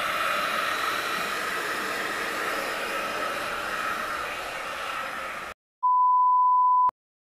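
Handheld hair dryer blowing steadily with a faint motor whine, cutting off about five and a half seconds in. Then a steady test-pattern beep for about a second, ending in a click.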